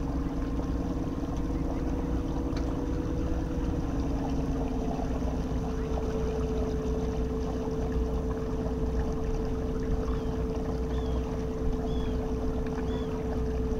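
Golden Motor 10 kW 48 V brushless DC motor driving the sailboat's propeller through a belt, running with a steady two-tone hum over water and wind noise. About five seconds in, the tones shift slightly and the upper one grows louder.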